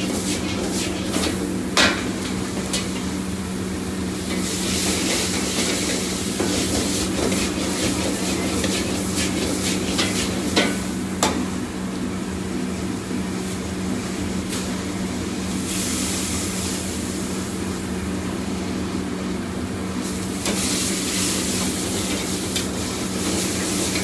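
Stir-frying vegetables in a wok on a restaurant wok range: food sizzling in the hot wok, swelling several times, over a steady roar. A few sharp clanks of the metal ladle against the wok.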